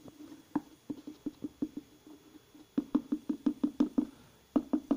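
Rapid runs of light plastic clicks and knocks, about six a second, as a plastic measuring scoop is worked out of a plastic tub of whey protein powder, with short pauses between the runs.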